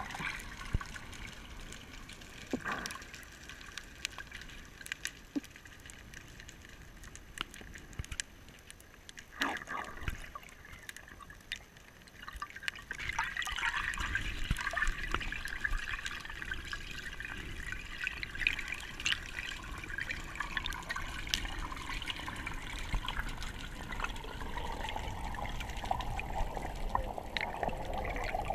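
Underwater sound heard through a GoPro's waterproof housing: muffled water with scattered clicks and a few bubbles. About halfway through it grows louder, with a steady rush of water and bubbles.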